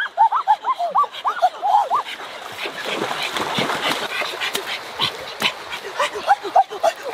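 A fast run of short chirping animal calls, about four a second, breaks off about two seconds in. Rustling and footsteps through tall grass and dry soil take over, and the calls start again near the end.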